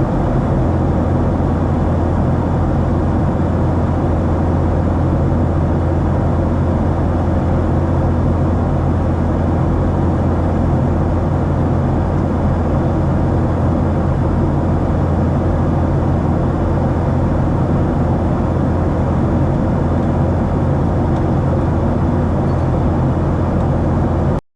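Cabin noise of a Boeing 737-700 in flight: its CFM56-7B turbofan engines and the rushing air make a steady drone with a strong low hum.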